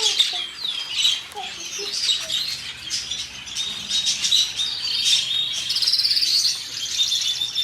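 Many small parrots chirping at once, their high calls overlapping constantly, with a fast trill about five and a half seconds in.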